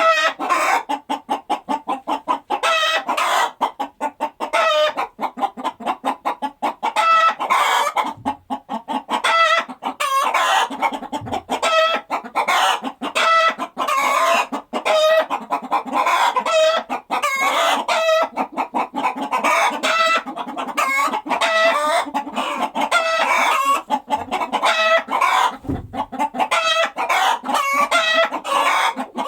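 A flock of chickens clucking continuously, many short pitched calls overlapping in quick succession. A few dull low thumps come through now and then.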